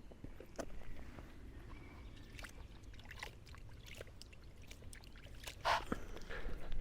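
Hands mixing and kneading damp feeder groundbait in a bucket: scattered soft crackles and squelches, with a slightly louder one near the end.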